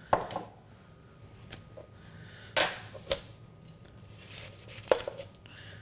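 Kitchen prep sounds: a glass mixing bowl clinks down on the counter just after the start, then a few knocks on a cutting board as a chef's knife and an onion are handled. Near the end the knife cuts through the onion and strikes the board.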